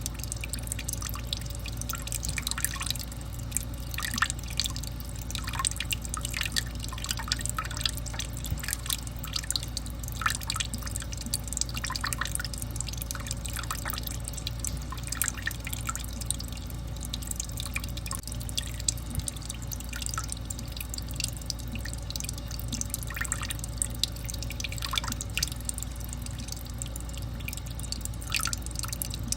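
Water dripping, with many small drops landing at irregular intervals over a steady low hum.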